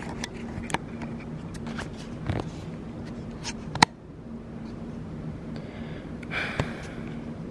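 Handling noise from a hand-held camera: scattered small clicks and knocks, a sharp click near the middle and a brief rustle near the end, over a steady low hum.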